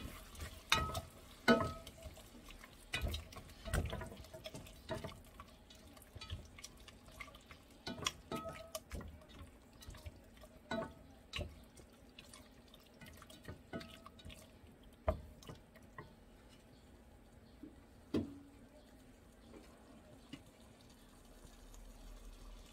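Pork being stirred with a silicone spatula in a pot on a gas burner, with irregular knocks and clacks of the spatula and pot, some leaving a brief ring from the pot, over the pork sautéing in oil. The knocking thins out and stops a couple of seconds before the end.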